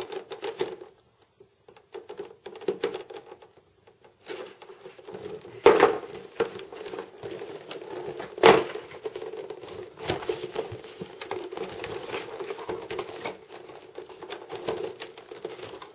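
Cardboard box and clear plastic packaging rubbing, scraping and crackling as a Logitech retail box is worked open and its plastic tray slid out of the sleeve. It goes quiet about a second in, then two sharp cracks stand out about three seconds apart, with rustling continuing after them.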